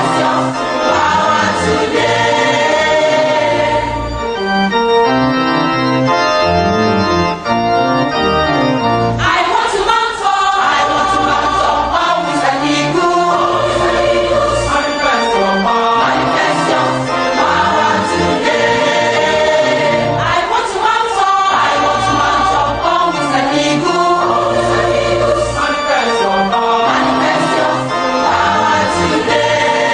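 Gospel music: a choir singing with organ accompaniment and a steady bass line.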